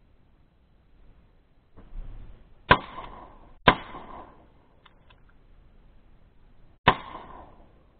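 Three shotgun shots fired at a flying duck: two about a second apart, then a third some three seconds later, each followed by a short echo. A rustle comes just before the first shot, and two light clicks fall between the second and third.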